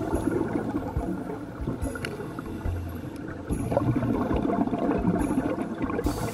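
Underwater bubbling and gurgling from a scuba diver's exhaled breath, rising in surges every couple of seconds over a steady crackle.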